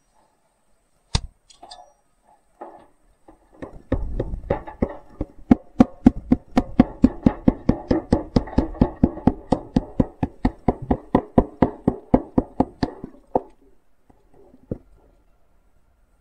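Rapid, even hammer taps, about four a second for some nine seconds, on a metal ferrule fitted over the end of a wooden axe handle that rests on a stone. A few scattered knocks come before the run starts.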